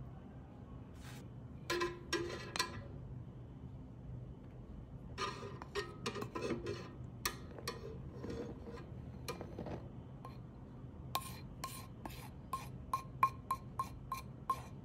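Wooden spoon scraping flour out of a ceramic bowl into a bread maker's pan, with scattered scrapes and clicks, then near the end a quick run of light knocks, about three a second, each with a short ring, as the spoon taps flour off against the bowl.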